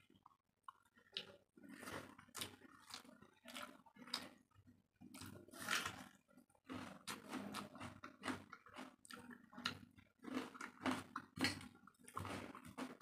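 Close-miked chewing and lip-smacking of a person eating rice by hand, a run of irregular wet smacks, with fingers squishing rice on a steel plate between mouthfuls.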